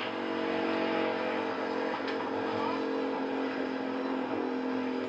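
An engine running at a steady, unchanging speed, with a short high click about two seconds in.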